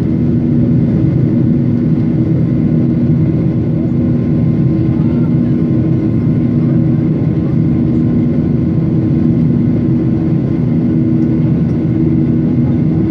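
Cabin noise of an airliner climbing after takeoff, heard from a seat beside the wing: the turbofan engines' steady loud drone, with a low hum that swells and fades every few seconds.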